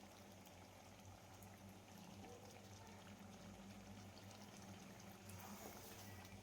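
Near silence: a faint steady hum under low hiss.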